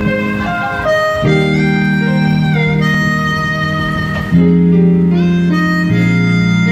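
Instrumental intro of a slow ballad backing track: a melody of long held notes over sustained chords that change every one to three seconds.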